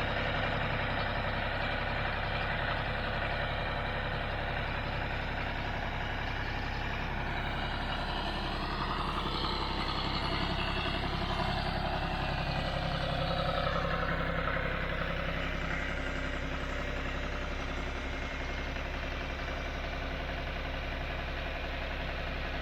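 John Deere 5055D tractor's diesel engine running steadily. Between about 8 and 15 seconds in, a higher whine rises and falls over the steady hum.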